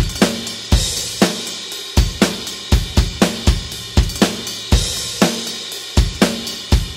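Rock drum kit playing a steady 120 bpm beat: kick drum, snare and hi-hat, with two cymbal crashes, one about a second in and one about five seconds in.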